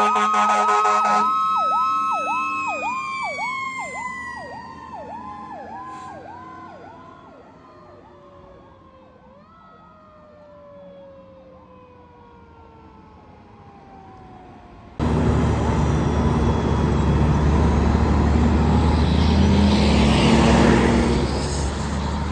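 Fire engine sirens fading into the distance: a fast yelp, about two sweeps a second, over a long siren tone whose pitch slowly falls as it winds down, both growing fainter over about 14 s. About 15 s in, a loud rushing noise with a low rumble cuts in abruptly.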